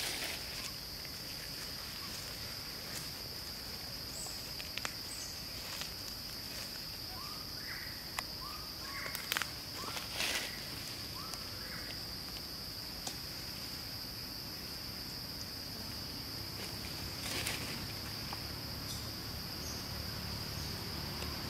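Steady high insect drone, with scattered crackles of dry leaves as long-tailed macaques move and forage, and a few short, faint chirps about seven to nine seconds in.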